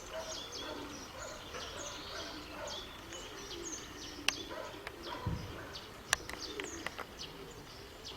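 Small birds chirping busily, with pigeons cooing low underneath. Two sharp clicks come in the middle.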